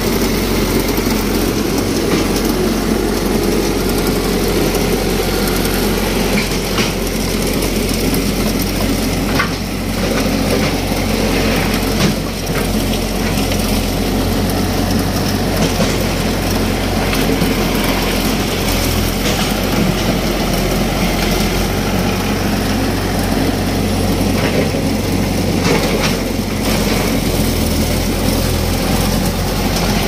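Backhoe engine running steadily, with a few brief knocks mixed in.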